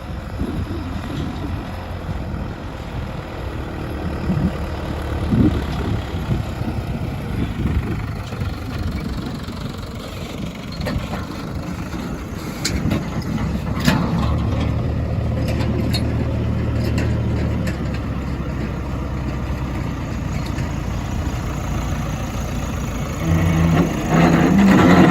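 Diesel engines of a backhoe loader and farm tractors working in a mud pit, running steadily with a few sharp knocks. The engine gets louder and higher near the end.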